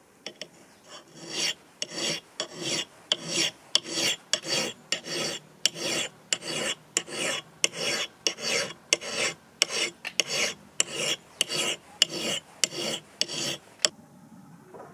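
Flat hand file rasping across the steel bevel of a double-bit axe head in a steady run of push strokes, about two and a half a second, stopping near the end. The file is thinning the bevel into a convex grind.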